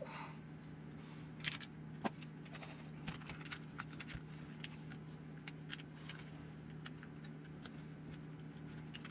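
Irregular light clicks, taps and rattles of small plastic and metal parts as the chassis of an RC buggy is handled and worked on by hand.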